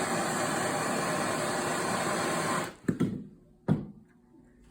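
Soldering torch flame hissing steadily while heating a copper pipe joint, then cutting off about two and a half seconds in, followed by two short knocks.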